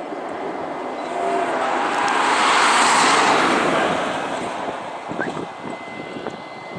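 Jet noise of a formation of Su-27 fighters passing overhead, swelling to its loudest about three seconds in and then fading away.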